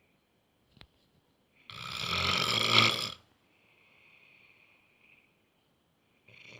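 A man snoring heavily in his sleep, with a grunting, lion-like sound. One loud snore comes about two seconds in and lasts about a second and a half. It is followed by a faint breath out, and the next snore starts near the end.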